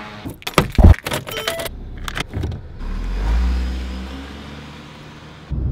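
Clicks and knocks, then a car door thumping shut just under a second in. After that the small family car's engine and tyres come up as it pulls away, swelling and then fading.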